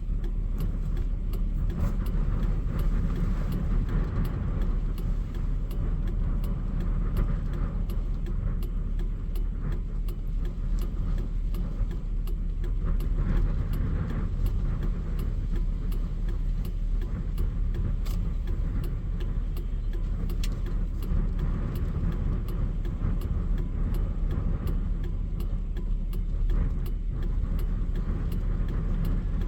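Steady low rumble of a vehicle on the move, with light rattling clicks scattered throughout.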